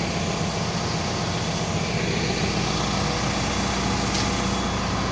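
John Deere 310K EP backhoe's diesel engine idling steadily.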